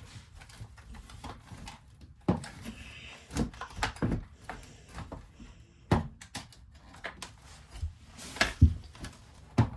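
Irregular clicks and knocks of hands and a screwdriver on the plastic base of a Dirt Devil upright vacuum as its screws are taken out.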